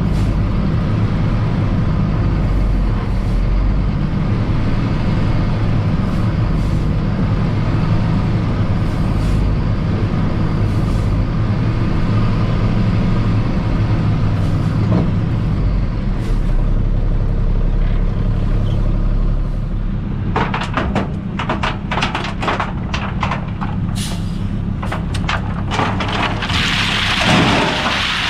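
Heavy diesel equipment running steadily. In the last several seconds a rapid series of sharp clicks and knocks starts, and a noisy rush comes in near the end.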